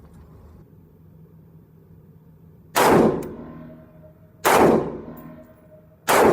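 Three single shots from a Black Rain Ordnance Fallout 15 AR-15 rifle in 5.56, fired about a second and a half apart, each with a short ringing echo as it dies away.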